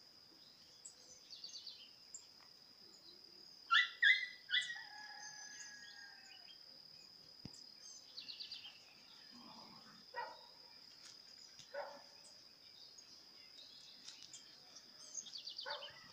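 Birds calling at dawn over a steady high-pitched insect drone, with a rooster crowing about four seconds in.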